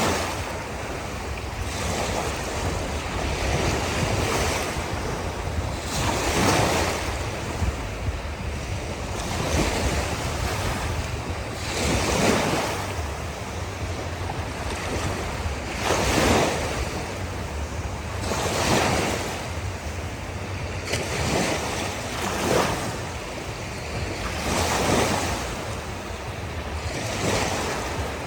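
Ocean waves breaking and washing up on a beach, each wave swelling and fading every few seconds over a steady low rumble.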